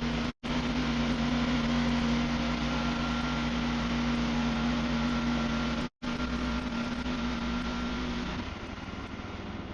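Wood-Mizer LX55 band sawmill running steadily, its engine and blade going through a white oak log. The sound is broken by two brief cut-outs, and it drops to a quieter, lower running sound near the end.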